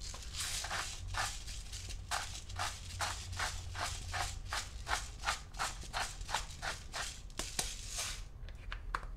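Hand-twisted salt grinder grinding salt in quick repeated crunching strokes, about three a second, stopping shortly before the end.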